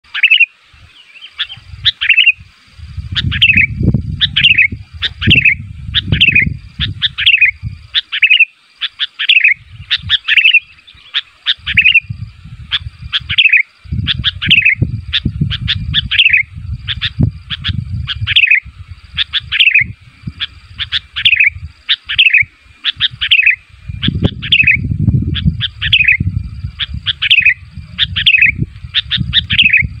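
Sooty-headed bulbul calling over and over: clusters of short, bright notes that fall in pitch, about one to two a second, with no pauses. A low rumble comes and goes underneath.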